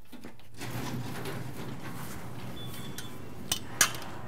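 Room tone with a low steady hum, then a few sharp knocks and clinks near the end from a man walking in carrying a metal tripod, its legs and his steps striking the concrete floor.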